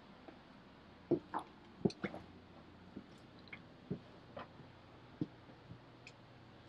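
Faint footsteps going down steps and along a passageway: about ten soft, unevenly spaced knocks over a low background hiss.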